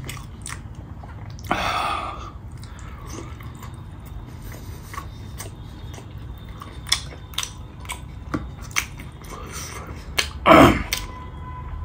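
Close mouth sounds of a person eating meat by hand: chewing with wet lip smacks and finger-licking, heard as a scatter of short sharp clicks. There is a louder rushing sound about a second and a half in, and a loud, brief voiced sound near the end.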